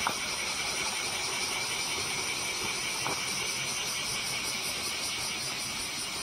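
Cicadas buzzing in a steady, high chorus, with a couple of faint ticks.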